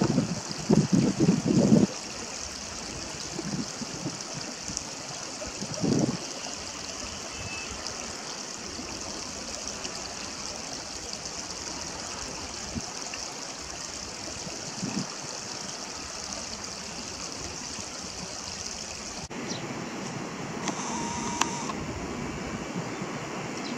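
Steady rushing of flowing water, with a few dull low bumps in the first two seconds and another about six seconds in.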